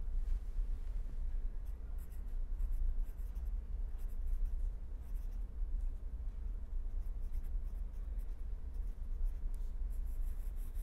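Pen scratching on paper in short runs of handwriting strokes, over a steady low hum.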